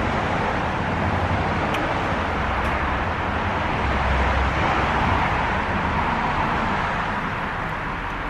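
Road traffic: a steady rush of passing vehicles with a low rumble that swells in the middle and eases off toward the end.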